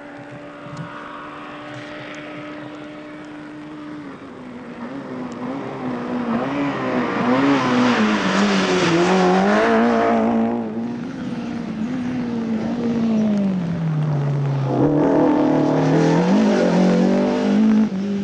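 Rally car engine running hard on a gravel special stage: a steady distant note at first, then revving up and dropping back through several gear changes as cars approach and pass, loudest in the last few seconds.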